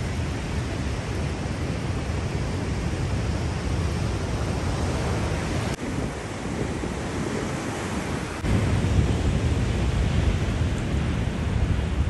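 Wind rumbling on the microphone over a steady rushing noise, stepping louder about eight and a half seconds in.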